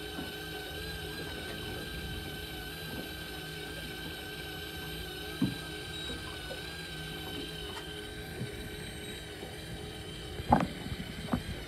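Fishing reel winding in line against the load of a hooked fish, a steady mechanical whine. A knock about halfway, and a few louder knocks near the end.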